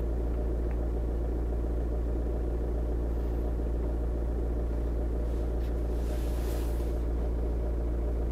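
Skoda Octavia Mk2's engine idling steadily, heard from inside the cabin as an even low rumble.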